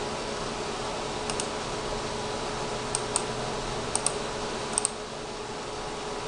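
Computer mouse clicks, each a quick press-and-release pair, coming every second or so over a steady hum.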